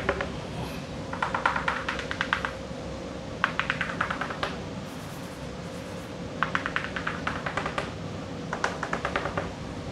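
Chalk tapping rapidly against a blackboard in four quick runs of taps, dotting out dashed lines.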